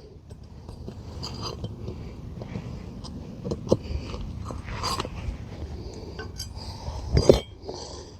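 Pry tool working under an asphalt shingle to pull out a roofing nail: scattered scraping and small metal clicks, with a louder knock about seven seconds in.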